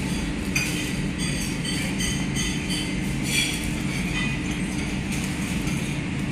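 Restaurant dining-room ambience: a steady low hum with light, repeated clinks of tableware.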